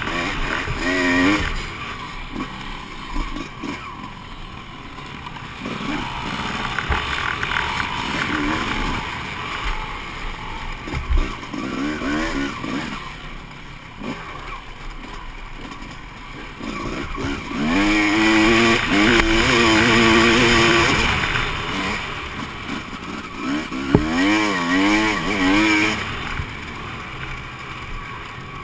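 Honda CR250 two-stroke motocross engine, ridden hard and revving up and down over and over as the rider works the throttle and gears, loudest about two-thirds of the way through, with wind rushing on the helmet camera. A couple of sharp knocks come through, about a third of the way in and again later.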